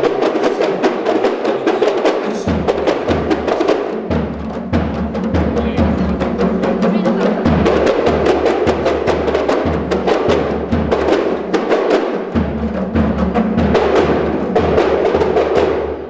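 Percussion music: many hand drums beaten in a fast, dense rhythm, over a low pitched line that shifts every couple of seconds.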